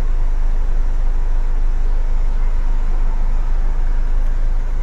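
Steady low rumble of a vehicle's engine idling, heard from inside the van's cabin.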